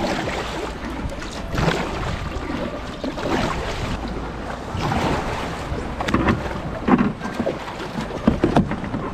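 Kayak paddle strokes splashing through choppy water, a surge every second or two, with wind buffeting the microphone as a steady low rumble.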